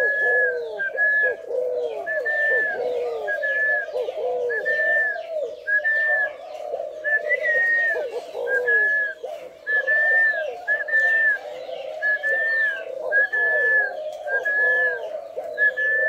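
Spotted doves cooing on and on without a break, several coos overlapping. A short high note repeats steadily, a little more than once a second.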